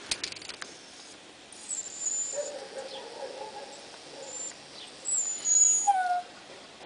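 A puppy whimpering: a wavering whine, then very high thin squeals and a short falling whine about six seconds in, as it opens its mouth wide.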